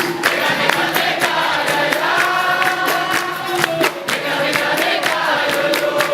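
Capoeira roda music: a group singing in chorus over percussion, with sharp beats repeating evenly throughout.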